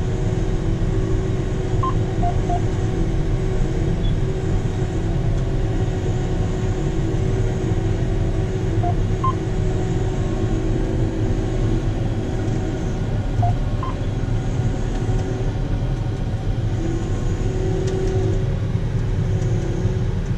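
Combine harvester running with a steady engine and machinery drone, heard from the operator's seat. Three times, about 2, 9 and 13 seconds in, a short two-note electronic beep sounds over it.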